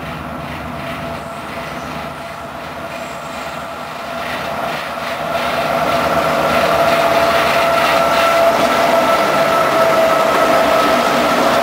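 Norfolk Southern diesel-electric freight locomotives approach and pass close by, with engine and wheel noise. The train gets clearly louder about halfway through, and a steady high ringing tone sits over it.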